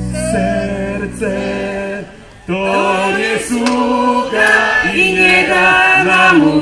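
Folk ensemble's mixed voices singing the chorus of a Polish folk-pop song over a backing band. The accompaniment stops about two seconds in, and after a brief pause the voices carry on unaccompanied.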